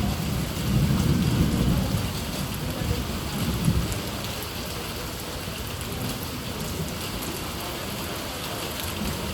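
Steady rain falling, an even hiss throughout. A low rumble sits under it for the first two seconds or so and once more briefly a little later, then it settles to the rain alone.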